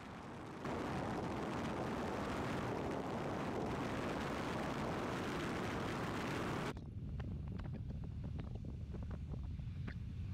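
Car driving along a road: a steady rush of wind and tyre noise over the microphone. About two-thirds of the way through the rush cuts off suddenly, leaving a lower road rumble with scattered light ticks.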